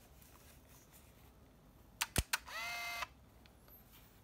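Olympus Trip AF 51 compact 35mm camera firing: three quick clicks of the shutter, then about half a second of motor whine as the built-in motor winds the film on. A faint rising high whine follows near the end, the flash recharging.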